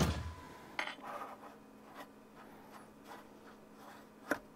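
A utensil stirring a wet meatloaf binder of breadcrumbs, eggs and milk in a bowl: soft scraping with a few clinks against the bowl, the sharpest near the end.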